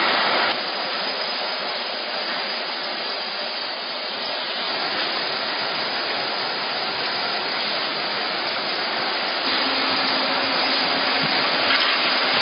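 Steady rushing air noise of a heat-shrink wrapping machine's hot-air blower running; a faint low hum joins in a few seconds before the end.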